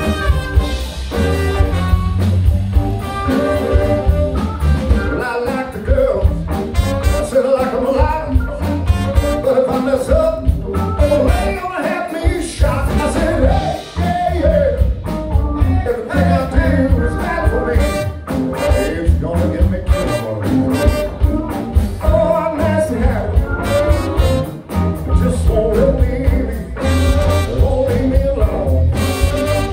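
Live band with a horn section playing amplified: a lead singer over electric guitar, drums and horns, with a heavy low end and a steady drum beat.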